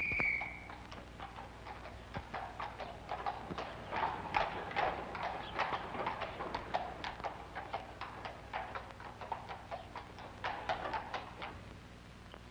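Horse's hooves clip-clopping as a horse-drawn cab passes along the street, a few irregular strikes a second, fading out near the end.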